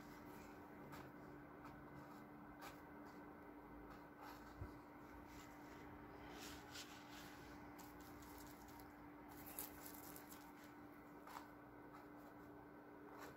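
Near silence: a steady low hum with faint, scattered ticks and soft scratchy strokes of an oil-painting bristle brush working paint on canvas and palette.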